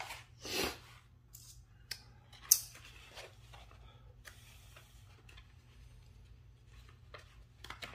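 Handling noise from hands sorting the cut-out vinyl rim stickers and cleaning supplies: scattered rustles and small clicks, with one sharp click about two and a half seconds in, over a faint steady hum.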